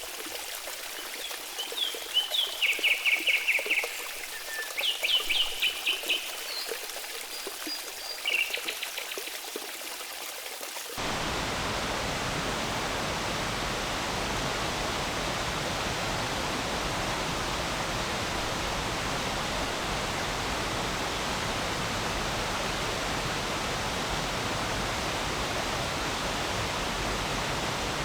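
Small songbirds singing short, rapid trilled phrases over a faint trickle of water; about eleven seconds in the sound switches abruptly to a steady, louder rush of flowing stream water with no birds.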